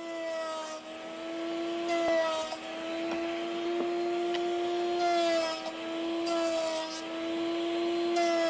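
Handheld wood router motor spinning at a steady speed, a constant pitched tone, with four short bursts of cutting noise as the bit bites into wood.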